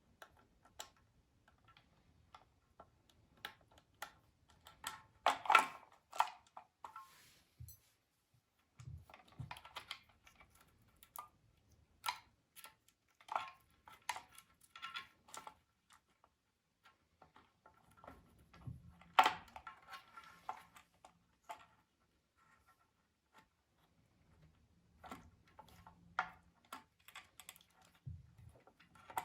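Irregular clicks, taps and small clatters of hand tools and small parts being handled, some with a brief metallic ring, in a small room.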